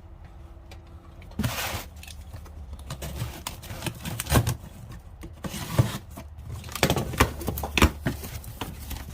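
Handling noise of hand tools and their packaging: irregular clicks, knocks and rustles as metal sockets and plastic cases are moved about, over a steady low hum.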